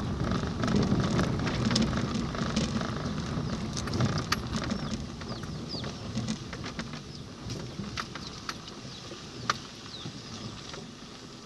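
Car driving slowly over a rough, muddy dirt road, heard from inside the cabin: a low rumble of engine and tyres with scattered clicks and knocks, fading as the car slows toward a stop.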